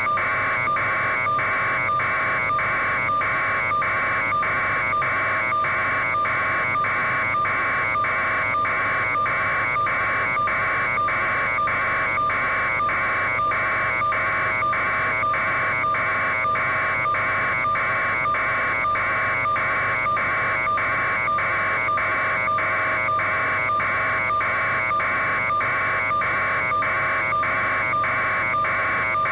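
An electronic buzzing tone pulsing evenly, about three pulses every two seconds, over a steady hum.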